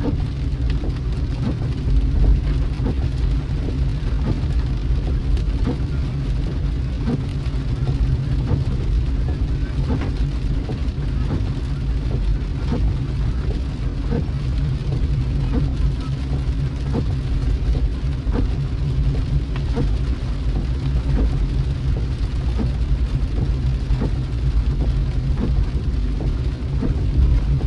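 A car driving in the rain: a steady low rumble of engine and tyres, with scattered raindrops tapping on the car throughout.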